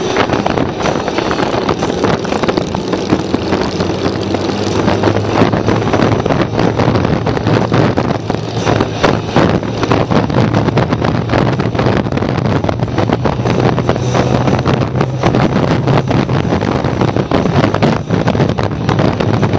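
Motorcycle engines running steadily at cruising speed, heard through heavy wind buffeting on the microphone.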